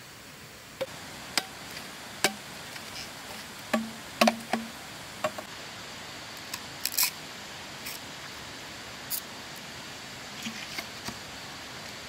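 Irregular sharp knocks and clicks of bamboo being cut and handled: a dozen or so short strikes, some with a hollow thud, loudest about four seconds in, over a steady background hiss.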